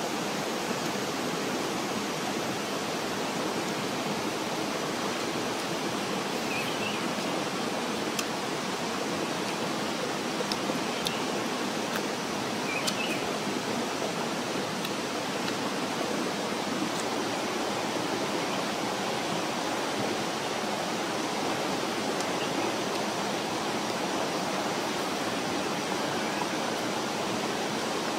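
Steady rush of a jungle stream's running water, with a few faint clicks about halfway through.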